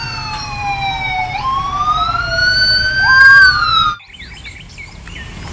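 Police siren wailing, its pitch sliding slowly down, then up, then down again, with a second siren tone overlapping near the end. It cuts off abruptly about four seconds in.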